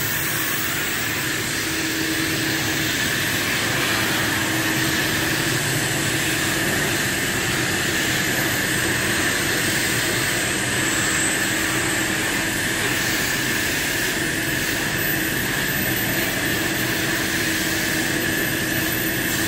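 Industrial vacuum cleaner running steadily, drawing air through a long hose on a high-reach pole, with a constant whine over its rushing noise.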